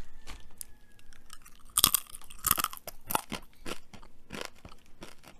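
Potato chip bitten and chewed close to the microphone: a sharp crunch about two seconds in, another half a second later, then a run of smaller crunching chews.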